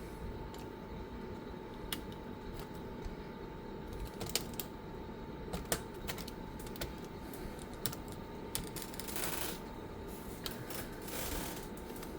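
Irregular small clicks and taps of plastic and metal laptop parts being handled during reassembly, with two short scraping sounds in the last few seconds, over a steady low hum.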